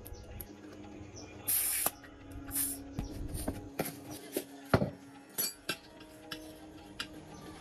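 Two short bursts of hissing spray, then scattered light clinks and knocks of metal or tools, the loudest about two thirds of the way through, over faint background music.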